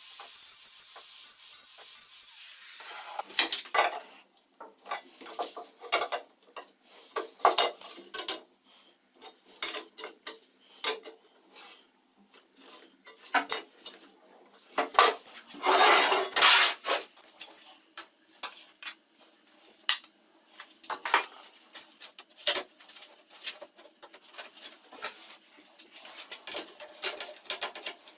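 Metal parts clinking, scraping and rattling against each other as they are handled, in irregular knocks of varying loudness. A steady high hiss stops about three seconds in, and a longer louder scrape comes about halfway through.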